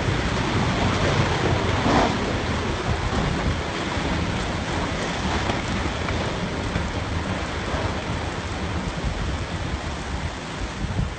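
Heavy rain and storm wind: a steady rushing noise with a low rumble underneath.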